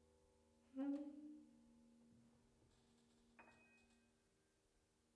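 Very quiet, sparse free-improvised chamber jazz: held instrument tones fade away, a short wavering low note sounds about a second in, and a faint high ringing note comes a few seconds later.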